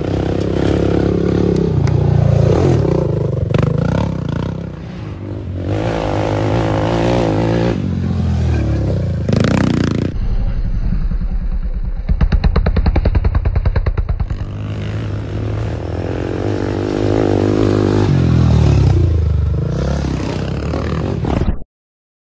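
Racing sport quads pass close by one after another, their engines swelling and fading with each pass as they rev on the dirt trail. About halfway through, one accelerates hard right by with a fast, even pulsing exhaust note. The sound cuts off abruptly near the end.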